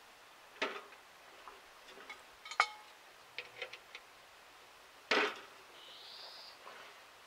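Metal clinks and clanks of hand tools and parts on a Z-069 rotary drum mower being worked on: scattered knocks, the loudest about two and a half seconds in, a few quick taps after it, and a heavier clank about five seconds in. A short high whistle comes just after the clank.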